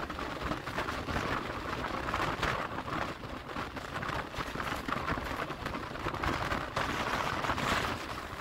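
Electric multiple-unit local train running at speed: a steady rumble with a clatter of wheels on the rails, and rain falling.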